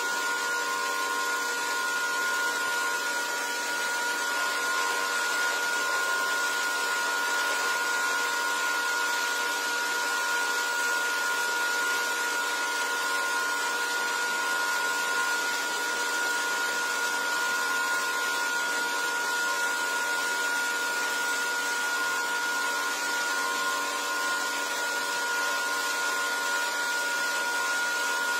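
Pressure washer running steadily: a constant motor whine over the hiss of its water jet spraying a soaped rug.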